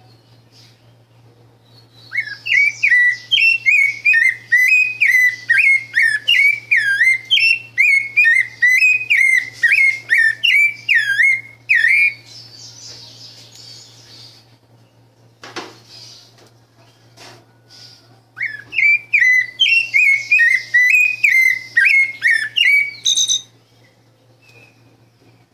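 Pale-breasted thrush (sabiá-branca) singing its fluted 'canto 38' song: two long phrases of rapid, looping whistled notes, the first about ten seconds long and the second about five, with a faint knock in the pause between.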